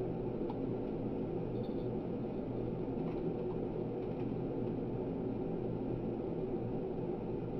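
Steady low mechanical hum of room background noise, with a couple of faint light taps about half a second and three seconds in.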